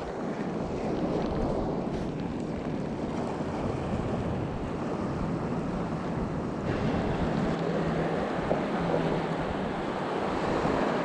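Wind on the microphone over small waves washing onto a shallow sand flat: a steady rushing noise that turns a little brighter about two-thirds of the way through.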